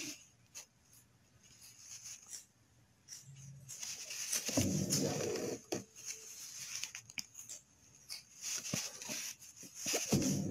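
Embroidery needle and thread drawn through cloth: soft scratches and rustles, with a longer rasping pull about halfway through and more rustling near the end.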